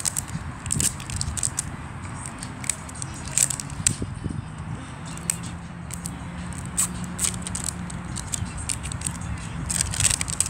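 Plastic wrapping of an LOL Surprise toy ball crinkling and crackling as it is peeled open by hand, in quick irregular crackles. A low steady rumble runs underneath.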